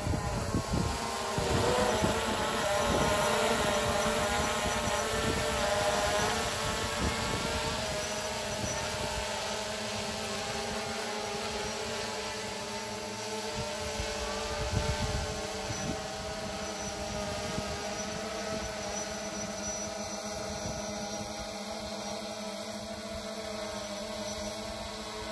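An engine running steadily, its hum slowly growing fainter.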